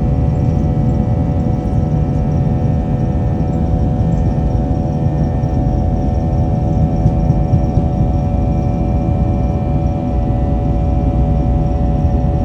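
Airbus A320 jet engines at takeoff power: a steady, loud low rumble with a constant whine made of several tones held at one pitch.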